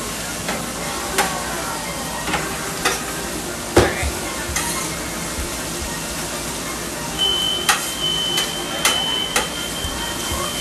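Food sizzling on a gas-fired steel flat-top griddle while metal spatulas scrape and clack against the plate, turning fried rice; one clack about four seconds in is the loudest. A steady high electronic tone starts about seven seconds in and holds.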